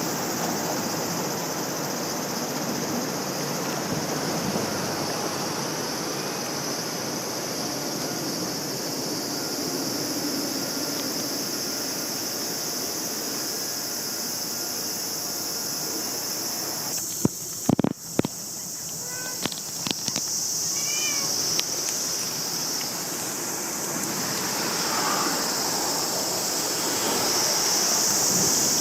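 A stray cat gives a few short, high meows about two-thirds of the way through, over a steady outdoor hiss with a high, insect-like drone. Just before the meows there are a few sharp clicks or knocks.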